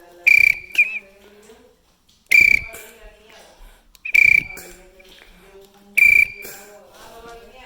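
Emergency alarm sounding: a loud, shrill horn blast about every two seconds, four blasts in all, each sharp at the start and lasting under half a second.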